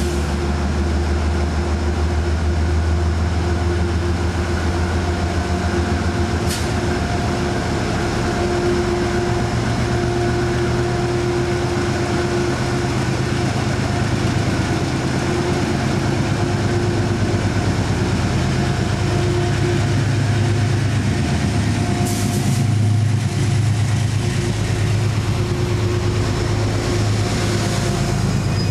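Metro-North GE P32AC-DM Genesis locomotive's V16 diesel engine running steadily as the train draws up at the platform, with a brief hiss about twenty-two seconds in.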